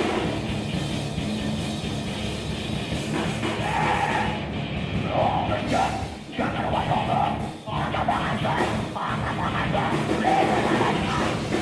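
A live heavy rock band plays loud, dense music with drums and instruments, and a voice comes in and out in bursts of singing or shouting over it.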